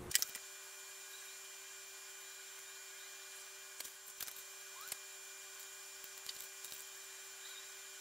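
Quiet workshop room tone: a steady faint hum, with a few light clicks and taps from small wooden parts being handled on the bench.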